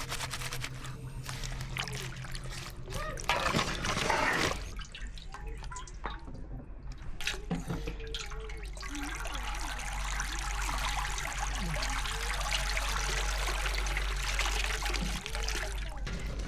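Water trickling and pouring, with a louder gush about three to four seconds in and a steady pour through the second half.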